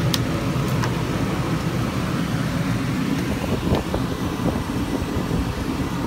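Rooftop Dometic 15,000 BTU RV air conditioner running with a steady hum, heard from inside the trailer. A couple of sharp clicks near the start come as the refrigerator door is unlatched and opened.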